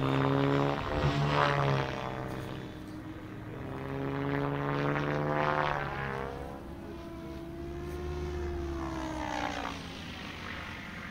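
Goosky RS7 electric RC helicopter in flight: its rotors give a pitched whine with a rhythmic blade whoosh, sliding up and down in pitch and swelling and fading in loudness as it manoeuvres and passes.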